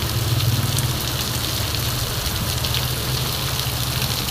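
Heavy rain pouring down on a paved street, a dense steady hiss of drops on wet asphalt, over a steady low hum.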